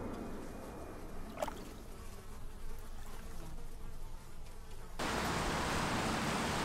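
A steady low motor drone on the river, with one short click about a second and a half in. At about five seconds it cuts abruptly to the louder, even hiss of traffic on a wet city street.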